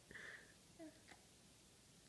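Near silence: room tone, with a couple of faint, very short sounds and a light click about a second in.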